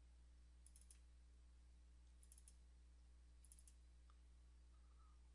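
Faint computer mouse clicks, in three quick bursts of three or four clicks each, over near silence with a steady low electrical hum.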